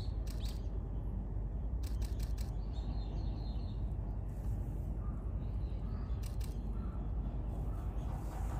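Camera shutters clicking in a few short runs of two or three over a steady low rumble of outdoor background noise, with faint bird chirps.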